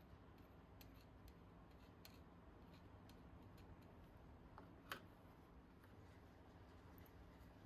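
Near silence with faint scattered clicks and taps from handling a grease-packed trolley jack wheel hub, and one sharper click about five seconds in.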